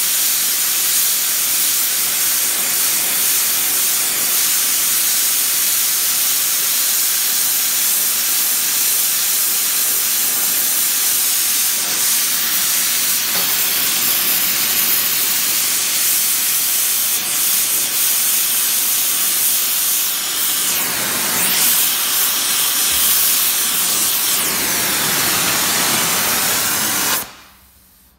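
Gas heating torch flame hissing steadily as it plays on a steel plate held in a vise, heating it to red heat. The flame is shut off near the end and the hiss stops abruptly.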